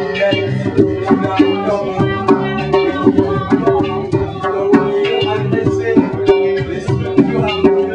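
Up-tempo music with quick percussion strokes, several a second, over a long held note.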